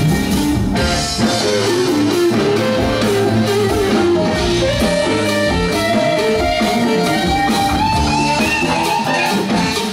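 Live funk band playing, with a lead electric guitar line over bass and drums.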